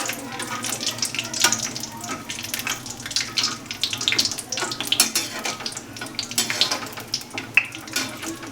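Almonds frying in hot ghee in a kadhai, sizzling steadily, with repeated short scrapes and clicks of a spatula stirring them against the pan.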